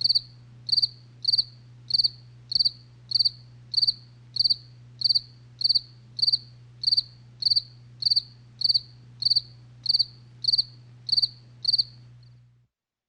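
Cricket chirping: short trilled chirps repeating evenly, about one every 0.6 seconds, over a steady low hum, stopping about twelve and a half seconds in.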